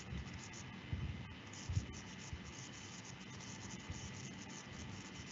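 Faint steady background hiss from an open microphone, with a few soft low thumps about a second in and again shortly after.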